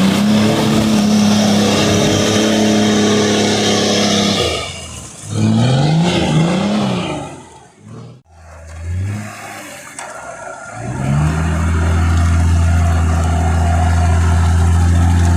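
Off-road 4x4's engine held at high revs for about four seconds, then dropping away and revved up and down twice. It falls almost silent about eight seconds in, then is held at steady revs again from about eleven seconds on.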